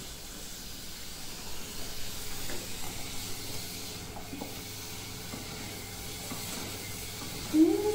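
Butter cooking in melted sugar, sizzling steadily in a saucepan on a gas stove while a wooden spoon stirs and scrapes the pan. A brief voice-like sound, rising then falling, near the very end.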